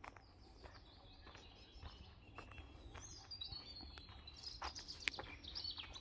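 Small songbirds singing high-pitched trills and chirps, louder in the second half, with a short falling run in the middle. Under them, footsteps crunch faintly and regularly on a dry dirt forest path.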